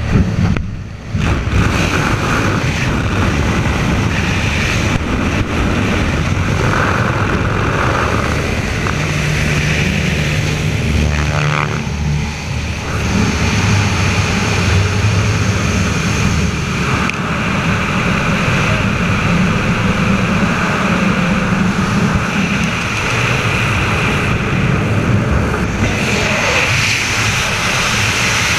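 Single-engine propeller plane's engine running at jump power, with a loud steady rush of wind through the open door and across the camera. Near the end the sound changes to the wind noise of freefall.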